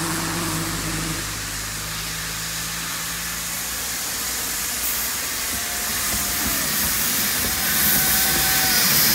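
Puffing Billy narrow-gauge steam locomotive approaching and crossing a timber trestle bridge overhead, hissing steam with the running noise of the train, growing louder toward the end.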